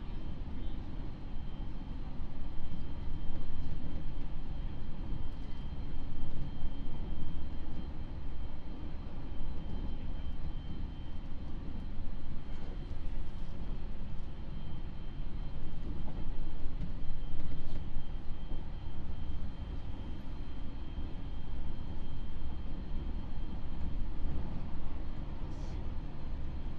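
Cabin running sound of a JR East 701 series electric multiple unit under way: a steady low rumble of wheels on rail and car body that swells and eases, with a faint steady high whine.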